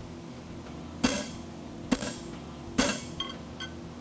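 Striker's sledgehammer blows on a red-hot steel fuller blank held on an anvil: three heavy strikes about a second apart, each ringing briefly, then two light taps near the end.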